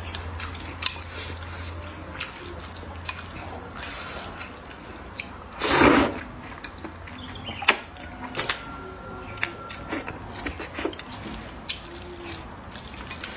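Close-miked eating of noodles: a loud slurp of noodles being sucked in about six seconds in, among scattered sharp clicks of wooden chopsticks against a ceramic bowl and wet chewing sounds.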